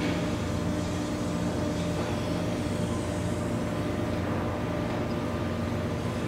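Tug diesel engines running steadily: a low drone with a few constant hum tones above it.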